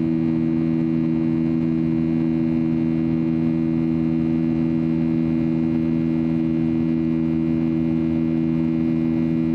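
Steady in-flight cabin noise of a Boeing 737-800: the drone of its CFM56 engines as several steady low hums over an even rush of airflow past the fuselage.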